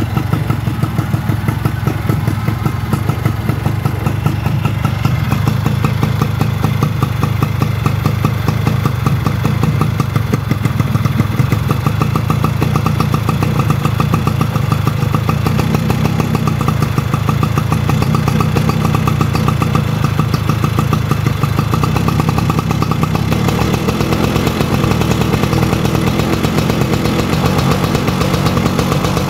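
Yamaha F1ZR's two-stroke single-cylinder engine idling steadily, with a rapid, even firing beat, while the idle is set at the carburettor screw.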